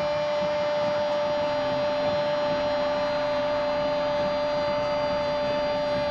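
A football commentator's drawn-out goal cry, held on one long, steady note over stadium crowd noise.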